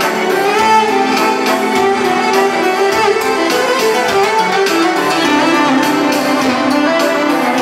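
Live band music amplified through the PA at a concert: a lead melody line over a steady drum beat, with no words in this stretch.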